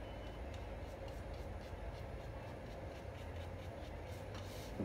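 Steady low room hum with a few faint clicks and taps as paint jars, lids and a brush are handled on a table.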